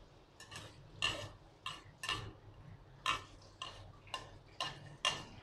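Slotted metal spoon scraping and knocking against a ceramic bowl as sliced onions are pushed out of it into a wok: a run of short scrapes, roughly two a second at uneven spacing.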